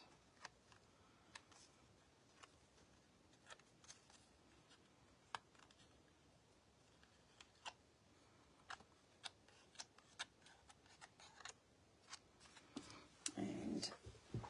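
Faint scattered ticks and soft rustles of thin cardstock being handled and bent, with a louder rustle of handling about a second before the end.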